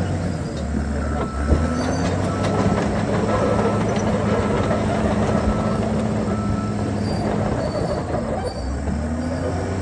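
A Caterpillar D5N LGP crawler dozer's diesel engine runs steadily under load while it pushes dirt and then backs up, with its steel tracks clanking and squealing. A reverse alarm beeps about once a second while it backs up.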